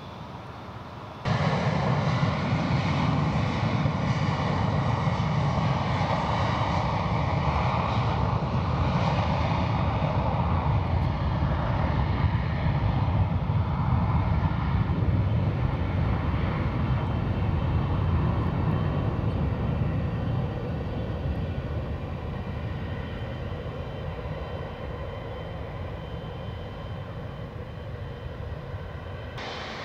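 Jet airliner's engines as the plane passes: a low rumble with a steady high whine on top. It starts abruptly about a second in, is loudest through the first half, then slowly fades.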